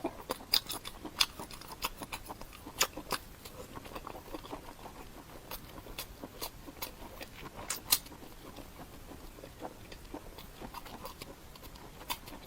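A person chewing food, with irregular sharp mouth clicks and smacks.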